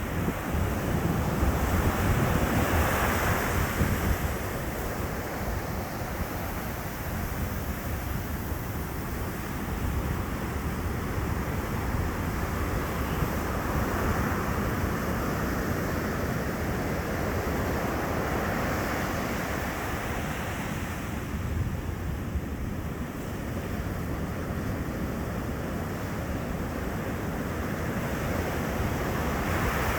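Sea waves breaking on a beach and washing in, a steady rush of surf that swells as each wave crashes, about a second in, around the middle and near the end. Wind buffets the microphone at times.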